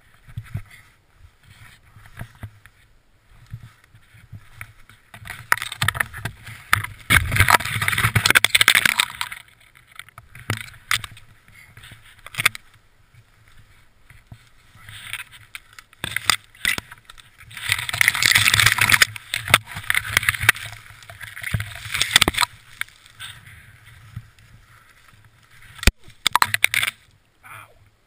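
Deep snow crunching and shuffling as a snowboarder struggles to dig and climb out of it, in two long noisy spells about five and seventeen seconds in, with scattered knocks in between.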